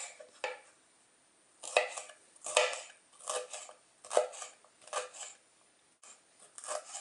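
Chef's knife slicing a green bell pepper into thin strips on a wooden cutting board, each cut crunching through the pepper and tapping the board. The cuts come roughly one a second, with a short pause near the start.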